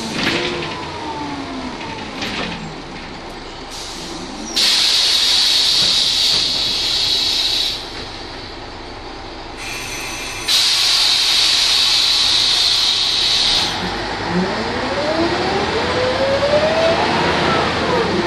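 Ikarus 280 articulated bus heard from inside. A falling whine fades as the bus slows, then come two long hisses of compressed air released by the bus's pneumatic system, each about three seconds. Near the end a rising whine from the Rába D10 diesel and its drivetrain builds as the bus pulls away.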